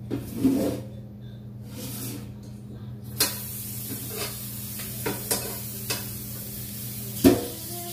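Water running from a kitchen faucet into the sink, starting about three seconds in, while noodles are strained, with several sharp knocks of a pot against the sink. A steady low hum runs underneath.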